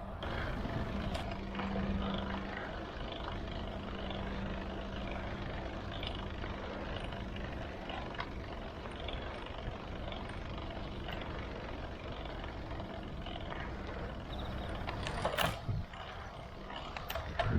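Steady wind and rolling noise from riding a road bike, with a low steady hum through most of it and a sharp clatter about fifteen seconds in.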